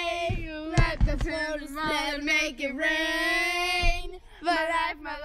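A high voice, a child's or a young woman's, singing long held notes that break off and start again, with a few short thuds about a second in and just before four seconds.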